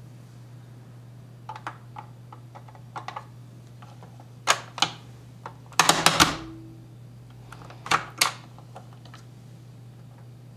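Hard plastic clicks and clacks from a toy chocolate-coin making kit as its parts are handled and its domed mold cover is pressed down. The loudest cluster of clacks comes about six seconds in. A faint steady low hum runs underneath.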